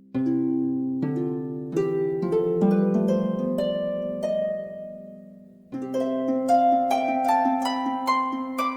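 Gentle background music of plucked-string notes: a slow phrase of notes that fades out about five seconds in, then a new phrase of notes climbing step by step in pitch.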